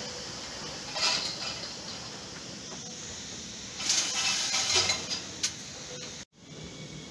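Steady background noise broken by clattering metallic clinks: a short burst about a second in and a longer run of clinks about four seconds in.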